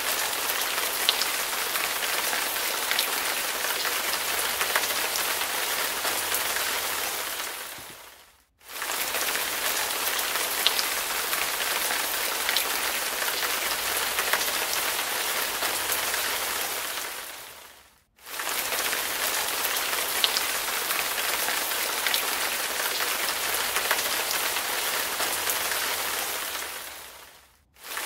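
Heavy rain falling on a hard surface: a steady, dense hiss with a few faint drop ticks. The sound fades out and comes back in about every nine and a half seconds.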